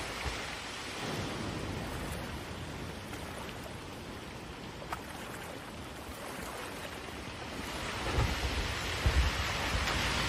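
A swollen, muddy river in flood rushing past, a steady roar of water. Several low rumbling thumps come in near the end.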